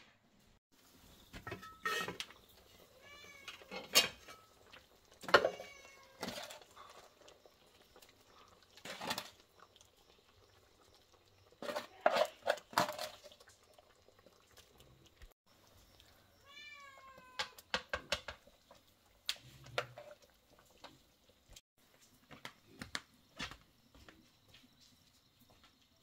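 A cat meowing twice, about three seconds in and again around seventeen seconds, amid sharp knocks and clatter. The loudest of the knocks come near four, five and twelve seconds in.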